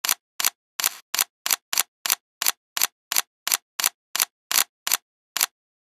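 Camera shutter firing about sixteen times in quick succession, roughly three a second, each release a sharp double click; the clicks stop shortly before the end.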